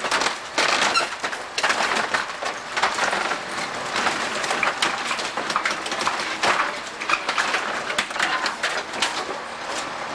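Building being demolished: a dense run of cracking wood, breaking glass and crashing debris as the structure is torn apart.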